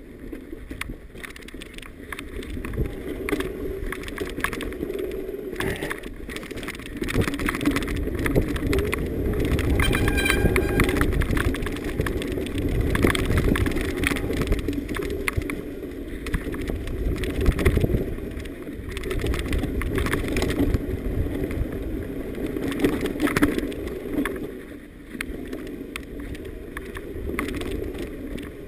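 Mountain bike riding fast down a bumpy dirt trail: a steady rumble of wind buffeting the microphone, with the bike's chain and frame rattling and clattering over the bumps. About ten seconds in, a brief high-pitched squeal sounds over the rattle.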